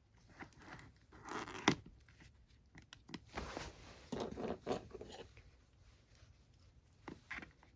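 Hands handling packaging and merchandise: irregular rustling and crinkling of paper and plastic, with a sharp tap or click just under two seconds in and more bursts of rustling in the middle and near the end.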